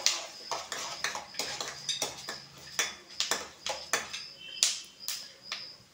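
A spatula scraping and knocking against a wok in irregular clicks, a few a second, as chana dal, peanuts and urad dal are stirred while they roast in oil.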